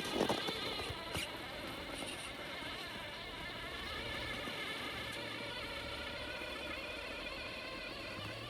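Steady, wavering high whine of a radio-controlled vehicle's electric motors running under throttle.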